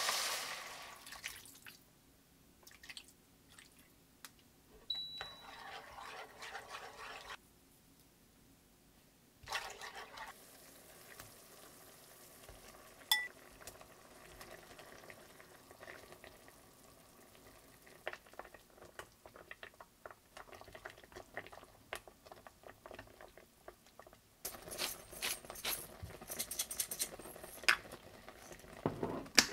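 Kitchen cooking sounds: a sizzling, stirred pan fading out in the first second or two, then pots, dishes and utensils being handled, with scattered clinks and knocks, one sharp clink about 13 seconds in, and a busier stretch of clatter near the end.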